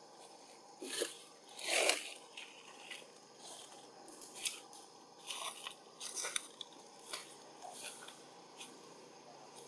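Baby macaque suckling at its mother's nipple: irregular soft wet smacks and sucking clicks, the longest and loudest about two seconds in.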